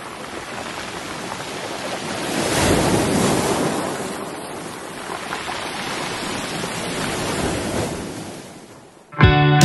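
Ocean surf breaking against rocks, a steady wash that swells loudest about three seconds in and again more gently later, then fades. Music with guitar cuts in just before the end.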